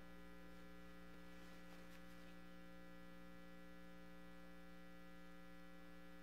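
Steady electrical mains hum, a low buzz with a ladder of overtones, over otherwise near silence.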